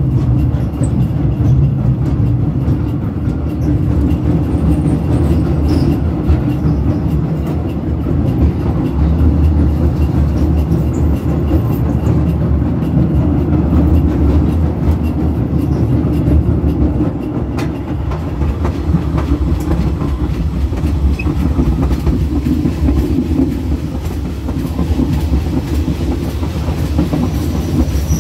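Passenger train running over the rails, heard from the rear of the last carriage: a steady low rumble with faint clattering of the wheels as it crosses a steel truss bridge.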